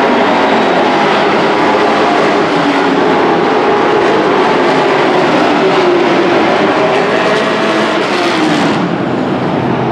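Several dirt-track race trucks' engines running at speed together, their pitches overlapping and shifting as the trucks pass around the oval; the sound eases off a little near the end.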